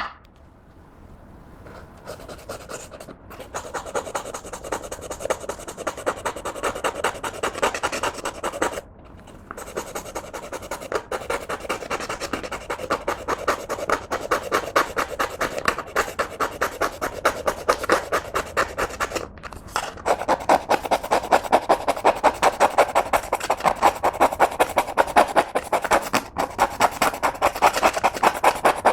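Clear slime being mixed with eyeshadow and lipstick: fast, steady, repeated sticky squishing strokes. They pause briefly twice and grow louder in the last third.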